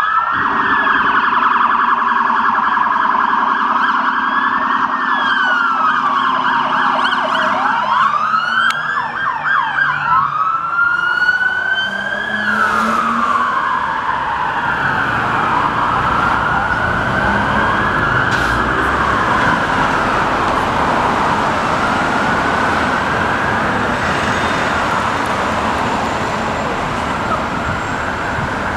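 Several police car electronic sirens, Code 3 Z3 and Federal Signal Pathfinder units, wailing in slow rising and falling sweeps, with several wails overlapping and crossing near the middle. Steady city traffic noise runs beneath them.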